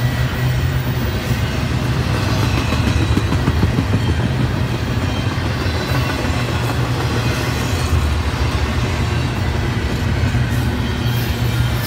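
Double-stack intermodal well cars rolling past on steel wheels over the rails: a steady low rumble with no break.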